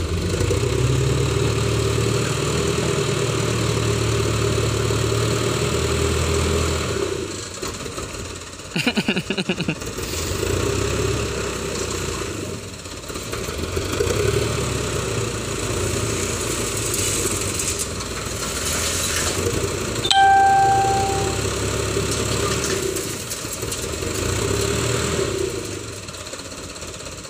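Light dump truck's diesel engine running steadily under load, driving the hydraulic hoist as the loaded bed tips and the soil slides out. A brief rapid rattle comes about a third of the way in, and a short single beep about two-thirds in.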